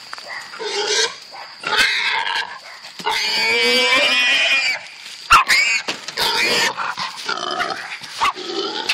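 A 60 lb hog squealing over and over as catch dogs hold it: short squeals with one long squeal of about two seconds in the middle. A single sharp knock, the loudest sound, comes about five seconds in.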